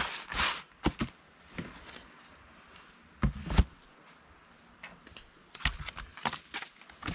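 A grey sheet swishing as it is spread over a plastic cooler, then a wooden cutting board thudding down onto the lid twice about three seconds in. Near the end, a run of softer knocks and slaps as fish are laid on the board.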